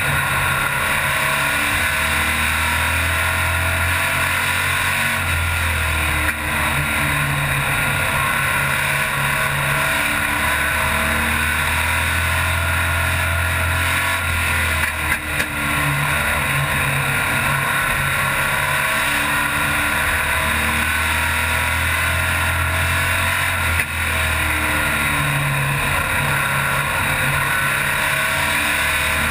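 Stock car's racing engine heard from inside the cockpit, running hard and loud at race pace, its pitch rising as it accelerates and dropping as it lifts, every few seconds.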